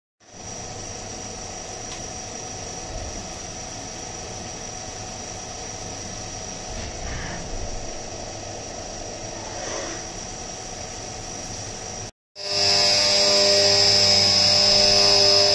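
CNC vertical mill drilling through an aluminium billet under flood coolant: a steady spindle whine with cutting noise. About twelve seconds in it switches to an end mill roughing out the pocket, louder, with a strong high whine.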